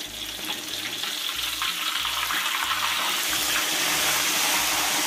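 Whole gourami deep-frying in hot oil in a wok, sizzling steadily; the sizzle grows louder from about three seconds in as the fish is turned over with a spatula.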